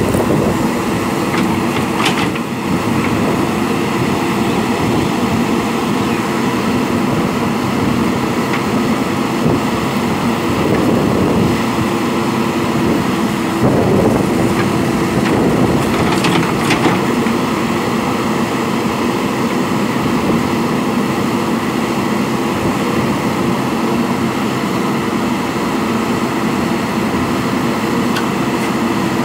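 Diesel engine of a JCB backhoe loader running steadily under working load, with brief sharp sounds about two seconds in and again about halfway through.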